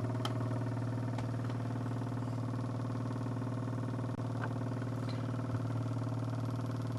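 Free-piston laminar flow Stirling (thermoacoustic) engine running at its resonant frequency, its glass piston oscillating rapidly back and forth in the glass bore. It makes a steady low hum with many overtones.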